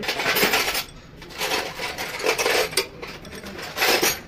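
Metal clinking and scraping of tools and parts being handled on a diesel engine's cylinder head, in about four short spells.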